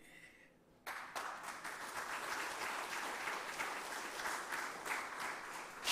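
Audience applauding: after a near-silent pause, many hands start clapping suddenly about a second in and keep up a steady applause.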